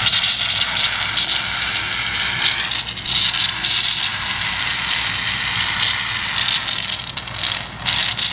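Two aerosol cans of shaving cream spraying at once, a steady continuous hiss as the foam streams out under pressure.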